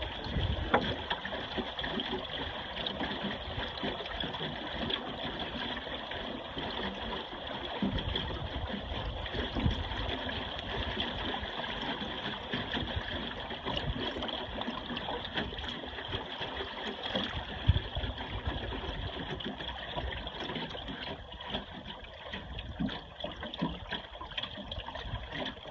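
Water splashing and gurgling against the hull of a small duck punt under sail, steady throughout, with an uneven low rumble of wind on the microphone.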